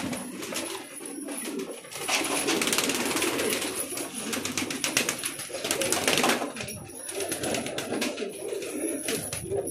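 Domestic pigeons cooing in a loft. A louder rustling noise runs from about two to six seconds in.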